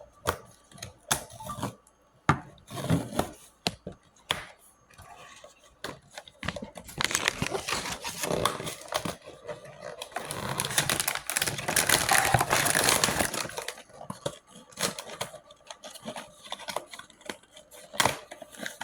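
A cardboard blind box being handled and opened, with clicks and knocks, then a stretch of several seconds of tearing and crinkling as the sealed foil bag inside is ripped open and unwrapped, followed by more light handling clicks.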